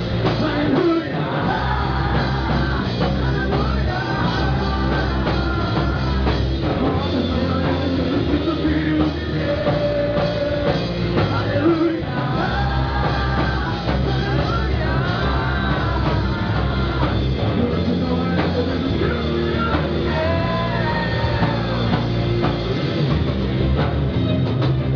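Rock band playing a gospel song with a singer, in a steady loud rock groove.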